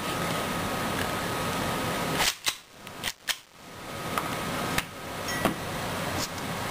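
Sharp clicks and clacks of a KSC Glock 18C airsoft pistol's slide being slid onto the frame and snapped into place. There are four loud clicks close together a little over two seconds in, then a few lighter clicks as the pistol is handled, all over a steady hiss.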